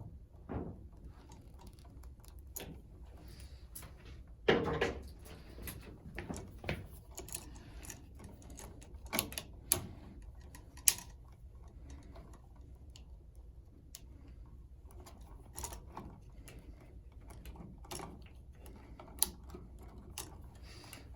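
Scattered small clicks and taps of hand work on electrical wiring in a switch box: wires, wire nuts and a screwdriver handled while the connections for a double toggle switch are tightened. A louder knock comes about four and a half seconds in, and a few sharp clicks follow later.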